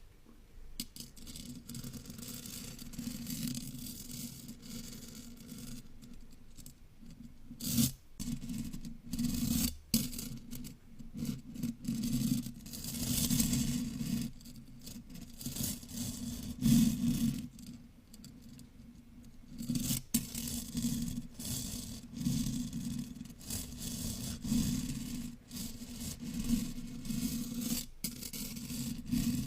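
A chain rubbed and dragged across a microphone, scraping and rustling in uneven surges with a close, low rumble of handling. Sharp clicks come now and then, a few in all.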